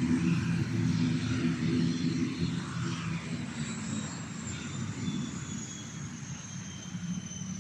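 Steady engine drone with a high whine that slowly falls in pitch from about three and a half seconds in, like a powered craft passing.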